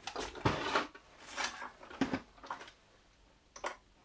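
Objects being handled and shifted on a wooden shelf: a few irregular knocks and scrapes, loudest in the first second.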